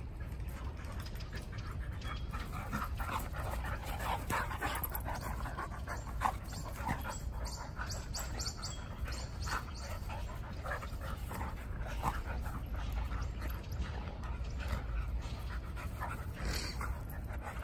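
Dogs play-wrestling, panting, with many short scattered dog noises over a steady low rumble.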